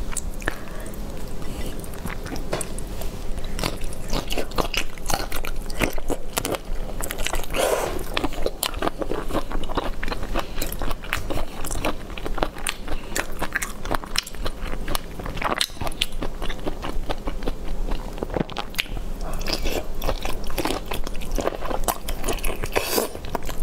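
Close-miked biting and chewing of shrimp and fish coated in chili sauce, a dense run of sharp clicks and crackles.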